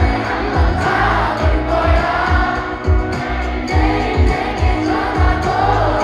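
Live pop song played loud through a concert sound system: a steady kick-drum beat under a sung melody.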